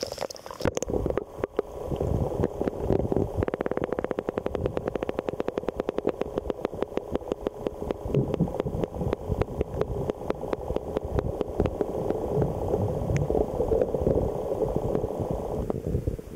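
Muffled underwater sound picked up by a camera held below the surface: a low, steady rumble with a rapid, even ticking through most of it.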